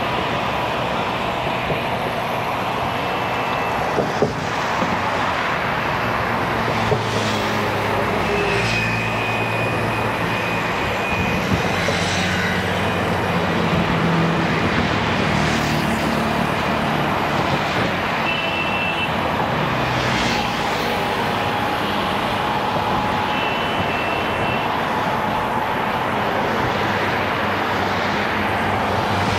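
Motor traffic passing close by on a road bridge: car and truck engines and tyre noise in a steady din, with vehicles swelling past every few seconds.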